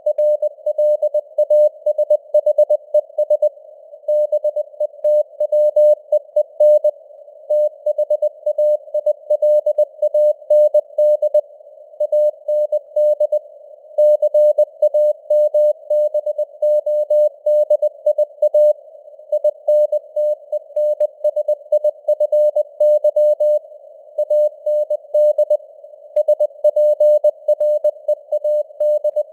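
Morse code at 20 words per minute: a single mid-pitched tone keyed on and off in dots and dashes. It sounds over a narrow band of simulated radio hiss, like a CW signal heard through a receiver's filter, and the signal strength varies as in radio fading (QSB).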